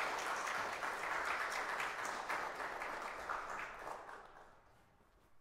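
Audience applauding with many hands clapping, dying away about four seconds in.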